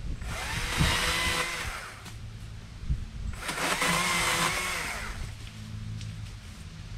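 STIHL MSA 160C battery-powered chainsaw cutting small trees in two bursts of about two seconds each, its electric motor whining under the trigger, with a pause of a second or so between them.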